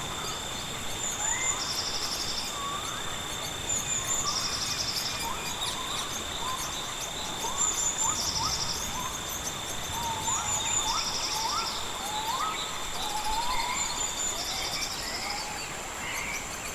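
Rainforest ambience: a steady high insect drone with a pulsing insect chorus repeating about every second and a half, and many short rising bird whistles. One of the steady insect tones stops near the end.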